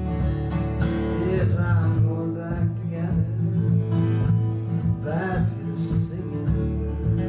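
Acoustic guitar music in a country-folk style, with a higher melody line that bends and glides between notes a couple of times.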